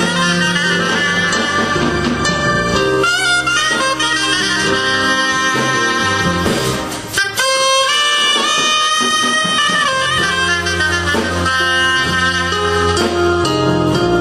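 Live band music: a trumpet plays the lead melody over bass and backing accompaniment, with a short break about seven seconds in before the horn comes back in.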